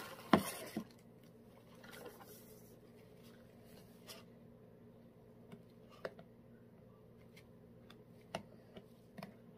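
Scraping and handling of plastic lip balm tubes and their filling tray as hardened excess lip balm is scraped off: a cluster of sharp clicks and knocks at the start, a short soft scrape about two seconds in, then scattered light clicks. A faint steady hum runs underneath.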